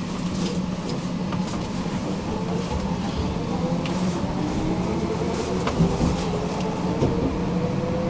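Tram pulling away from a stop, heard from inside: a steady low hum under the electric traction motors' whine, which rises in pitch as the tram accelerates. Short clicks and knocks come through now and then.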